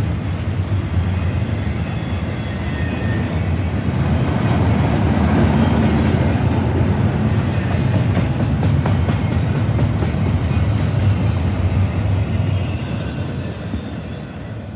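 Double-stack intermodal freight train's well cars rolling past on the rails, a steady loud rumble with wheel clatter. It fades near the end as the last car goes by.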